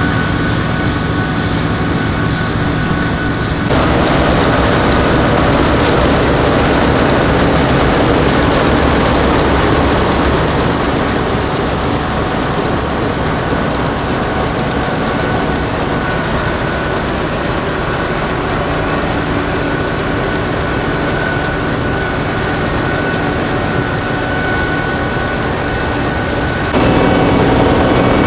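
Massey Ferguson 760 combine's Perkins V8 diesel running steadily under harvesting load. The sound changes abruptly about four seconds in and again near the end.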